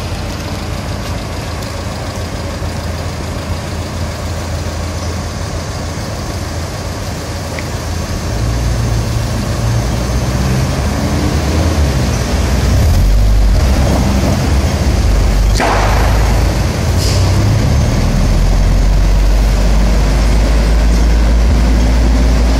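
Road vehicle engine running with a low rumble that comes in about eight seconds in and grows louder, then stays loud. A short sharp hiss comes a little past the middle.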